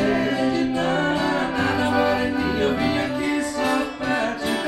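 A male singer with accordion and acoustic guitar performing a song, the voice holding long notes over the accordion's sustained chords.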